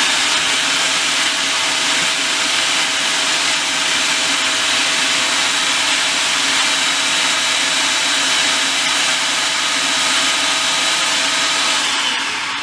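An Aigostar food processor's motor running steadily at speed, with a constant whine, as its blades mince onion. It begins to wind down near the end as it is switched off.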